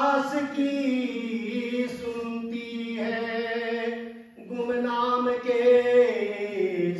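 A man singing unaccompanied in long held notes, three phrases, the last sliding down in pitch.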